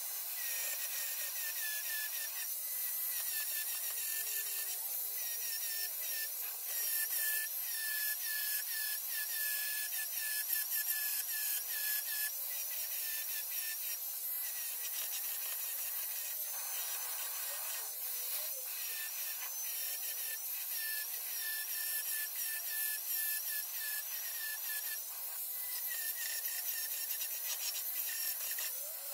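A grinder running steadily on steel, grinding back the welds of a patch panel welded into a car's rusty C-pillar. Its whine wavers as the disc is worked against the metal.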